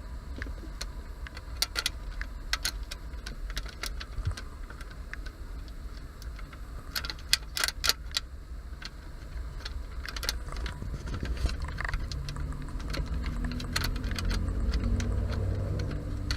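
Metal mounting brackets and screws being handled and screwed onto a car stereo head unit: irregular sharp metallic clicks and clinks, over a steady low rumble that swells in the last few seconds.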